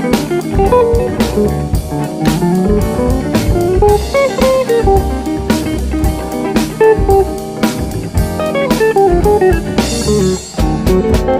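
Instrumental background music: a plucked guitar melody over a steady drum beat.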